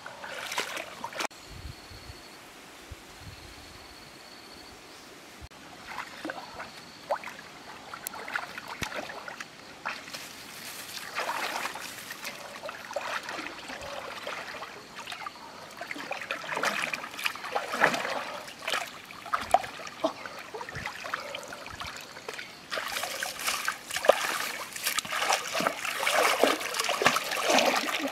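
River water splashing and sloshing as a person wades and works their hands in it, in irregular bursts that grow busier and louder in the second half.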